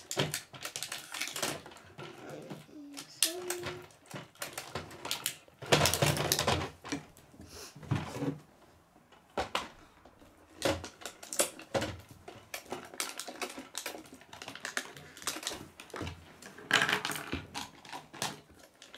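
Small hard plastic toy pieces clicking and clattering as they are handled and set down, in irregular taps.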